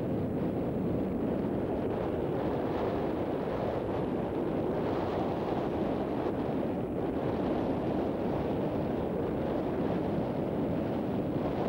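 Wind buffeting the camcorder's microphone: a steady, low rushing noise with no let-up.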